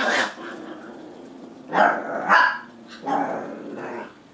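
Eight-week-old Labrador and Australian Cattle Dog puppies barking as they play-fight. One bark comes at the start, two come close together about two seconds in, and a longer, drawn-out one comes near the end.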